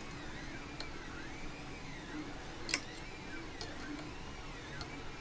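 A 3D printer running, its stepper motors whining in rising-and-falling sweeps about once a second as the print head moves back and forth. A few small sharp clicks sound over it.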